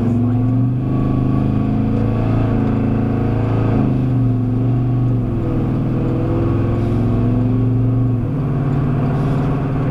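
A car's engine and road noise heard from inside the cabin as the car drives and accelerates along the highway. The engine note steps to a new pitch a few times.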